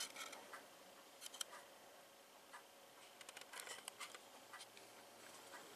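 Near silence with faint handling noises: small clicks and light rustles of fingers turning a plastic HO scale model passenger car, a little busier around the middle.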